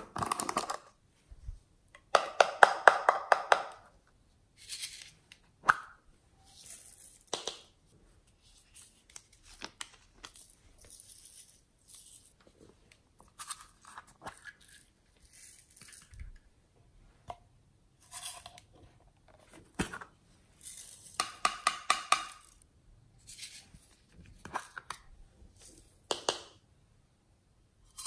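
Small plastic containers and a small tin box being handled and opened by hand: scattered clicks and taps of lids and cases, with two longer bursts of rapid crackling, one soon after the start and one about three-quarters of the way through.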